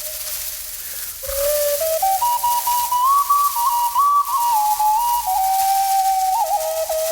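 A solo breathy flute playing a slow melody: held notes that step up after a short break about a second in, peak in the middle and ease back down, with small ornamental turns between notes.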